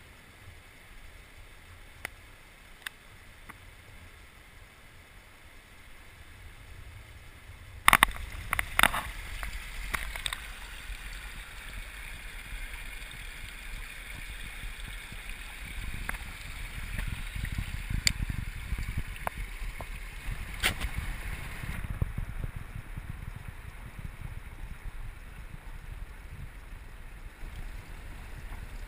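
Stream water flowing, at first a quiet even rush; about eight seconds in comes a burst of splashing knocks, and then the flow is heard muffled from underwater, a dull rushing with a deep rumble and scattered clicks.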